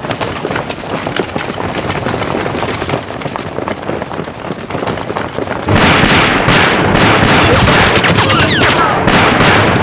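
Battle sound effects: after a quieter stretch, loud rapid gunfire and explosions break out suddenly about six seconds in and keep going.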